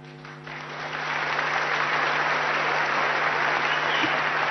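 Large audience applauding, swelling over the first second into steady, dense clapping.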